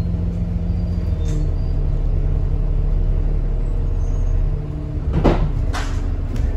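Bus engine running as the bus drives along, heard from inside the passenger saloon, its hum steady with a small drop about four and a half seconds in. Two short hisses of air follow near the end, typical of the bus's air brakes.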